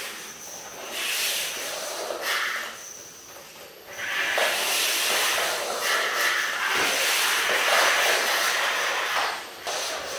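Simple electromagnetic trains (batteries with neodymium magnets at each end) running through bare copper and aluminium wire coils, making a hiss that comes and goes. It grows louder and steadier about four seconds in and dips briefly near the end.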